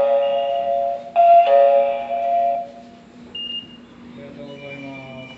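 Automatic ticket gate's IC-card reader sounding loud electronic chimes as cards are tapped: one chime ringing on at the start, a second about a second in lasting about a second and a half. Fainter short beeps follow near the end.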